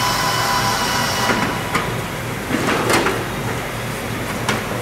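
Hangar workshop noise: a steady background din broken by four sharp knocks, the loudest about three seconds in.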